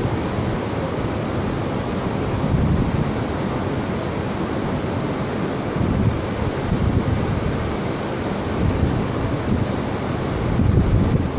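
Wind blowing on the microphone, swelling and easing every few seconds, over a steady rush of surf.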